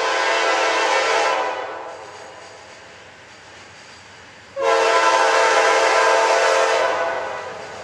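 Norfolk Southern GE wide-cab diesel freight locomotive sounding its air horn, a chord of several steady tones, in two long blasts: a first of about a second and a half, then a longer one starting about four and a half seconds in. Between the blasts the approaching train's low rumble is heard.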